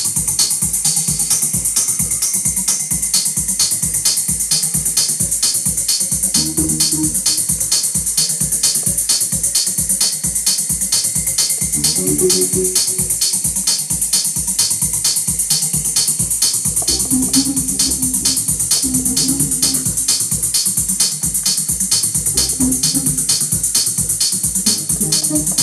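Techno beat playing from Native Instruments Maschine at about 131 BPM: a steady kick on every beat with hi-hat ticks over it. Short pitched synth notes come in and out over the loop.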